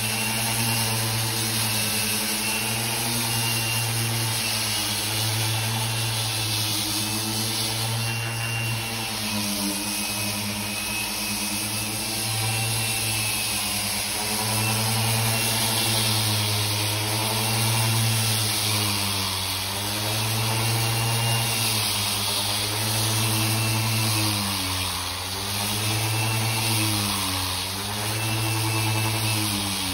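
Electric random orbital sander running steadily as it sands old antifouling paint off a boat hull, its pitch dipping several times in the second half.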